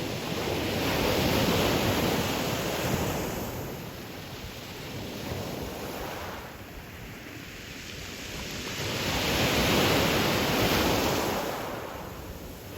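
Ocean surf breaking on a beach: two waves swell up and wash in, the first about two seconds in and the second near the end, with quieter wash between them.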